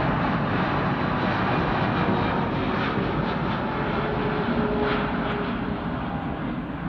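Boeing 777 airliner passing low overhead on approach with gear down: the steady rumble and rush of its twin jet engines, with a faint steady whine coming in about halfway through and the sound easing a little near the end as it moves away.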